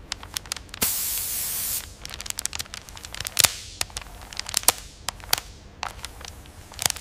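Clear plastic paint-protection film crackling and ticking as it is handled and pressed onto a car fender with a squeegee, in scattered sharp clicks. A steady hiss lasts about a second near the start.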